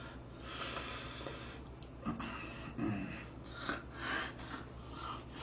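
A man slurping spaghetti, one long hissy slurp about half a second in that lasts about a second, followed by short clicks and smacking mouth noises.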